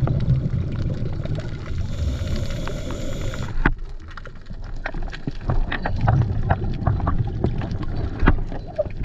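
Underwater ambience over a shallow rocky reef: a low rumble of moving water with many scattered sharp clicks and crackles. A hiss is heard over it early on and cuts off suddenly about three and a half seconds in.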